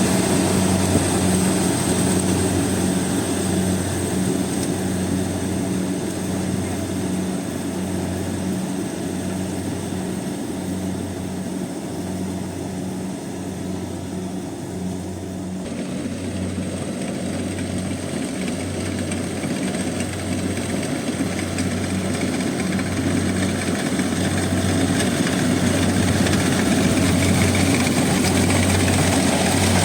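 Rice combine harvester running steadily at work, a low engine drone that pulses about once a second. It eases off a little mid-way and grows louder toward the end.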